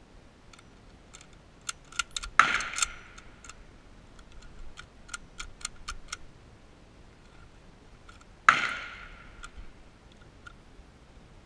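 Metal clicks and clacks of a Mosin-Nagant rifle being handled at the bench, with two loud gunshots about two and a half and eight and a half seconds in, each ringing out for about a second.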